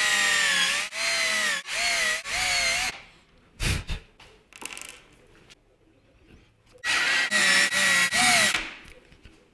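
Cordless drill motor whining in several short trigger bursts as it drills a small hole through a board, the pitch bending as the bit bites. A single knock comes about four seconds in. The drill then drives a screw in a few more bursts, and its pitch dips near the end.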